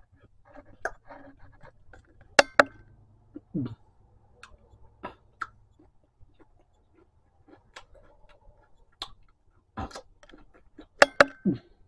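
A person chewing and eating close to the microphone: irregular clicks and crunches from the mouth, with the loudest about two seconds in and near the end. There are also two brief low voice sounds.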